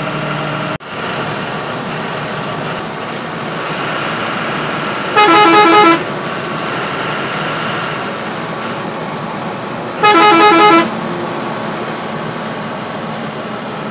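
Bus horn sounding in two short blasts about five seconds apart, over the steady engine and road noise of the bus cruising at highway speed, heard from the driver's cab.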